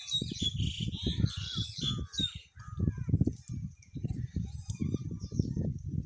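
Small birds chirping and twittering, busiest in the first couple of seconds and then thinning to a few scattered calls, over a low, uneven rumble.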